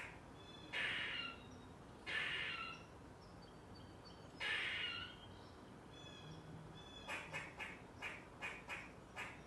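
Eastern gray squirrel alarm calling: three harsh, drawn-out calls spaced a second or two apart, then, about seven seconds in, a quick run of short barks about three to four a second.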